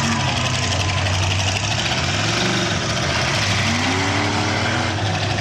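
Demolition derby cars' engines running together in a steady, loud din, with one engine revving up and easing off about two-thirds of the way through.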